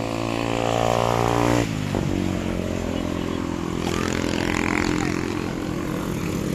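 A small engine running steadily. Its note grows louder, then changes abruptly about one and a half seconds in, and it keeps running at a steady lower pitch.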